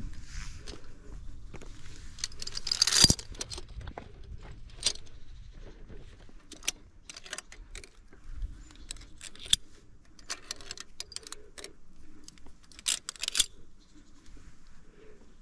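Via ferrata lanyard carabiners (Edelrid Cable Kit Lite) clinking and scraping against the steel cable and rock as the climber moves along. A louder scrape ends in a clank about three seconds in, followed by scattered light metal clinks and a short cluster of jangles near the end.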